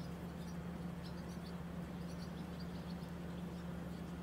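Moored car ferry's machinery running with a steady low hum. Faint, short high chirps, likely small birds, are scattered over it.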